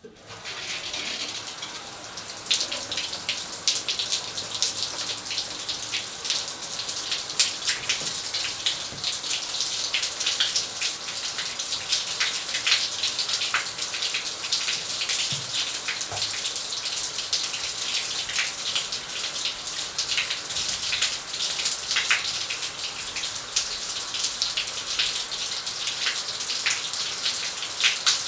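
Shower water spraying from a showerhead and splattering: a steady hiss with many irregular sharp drops and splashes. It comes on right at the start and then runs on evenly.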